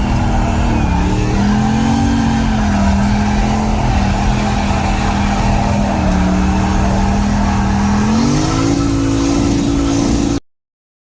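Turbocharged LS V8 car engine running at steady, high revs, its pitch climbing about eight seconds in, then cutting off suddenly near the end.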